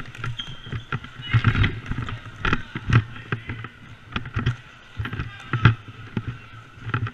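Irregular sharp knocks and clatter of box lacrosse play on a hard indoor rink floor: sticks, gear and feet, heard close through a goalie's helmet-mounted camera, with the loudest knocks about one and a half, two and a half, three and five and a half seconds in.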